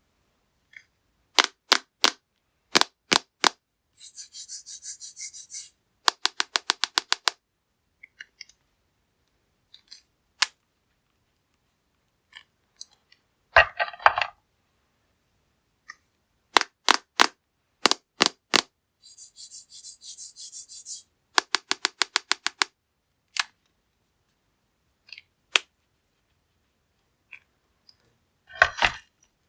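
Small hard candies clattering onto a hard plastic surface: scattered sharp clicks, a rattling pour of many pieces lasting under two seconds, a quick run of single clicks, and a short loud crunch. The same run of sounds comes round again about halfway through.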